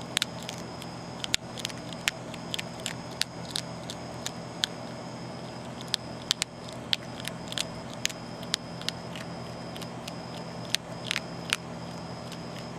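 Young Virginia opossum chewing dry cat food, the kibble crunching in sharp, irregular cracks a few times a second.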